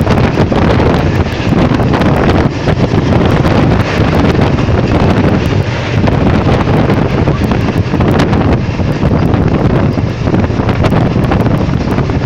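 Wind buffeting the microphone at the open window of a moving passenger train: a loud, steady rush, with the train's running noise beneath it.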